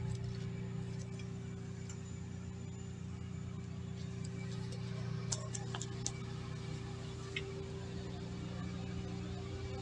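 Steady low hum of room tone, with a few faint clicks a little past halfway through.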